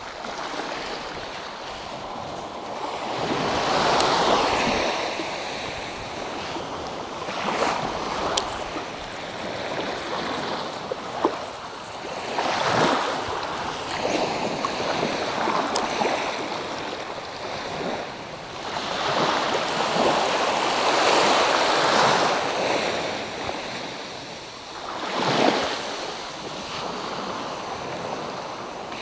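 Small sea waves breaking and washing up over sand in the shallows, swelling and falling back every few seconds.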